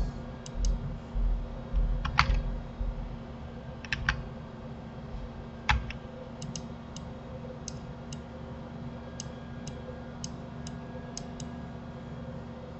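Computer keyboard and mouse clicking: about fifteen short, sharp clicks at irregular intervals, more closely spaced in the second half. A few dull low thumps in the first three seconds and a faint steady hum lie under them.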